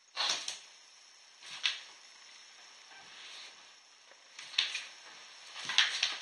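A large dog and a puppy playing on a wooden floor: a few short scuffles and scrapes of paws and claws on the boards, four or so, scattered through the few seconds.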